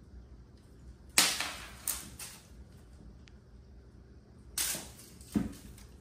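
A flying propeller cat toy launched twice, about a second in and again near the end. Each time there is a sharp snap followed by about a second of noisy whirring with a few more sharp clicks.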